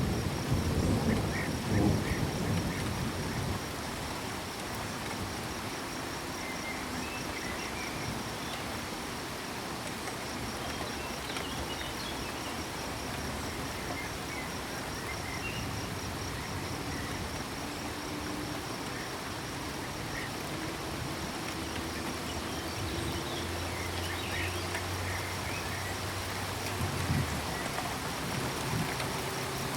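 Steady rain with a cricket trilling continuously at a high pitch and frogs croaking in short low calls, with a low rumble in the first few seconds.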